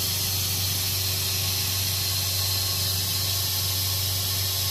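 Truck-mounted carpet-cleaning unit running steadily, heard as an even hiss over a low hum.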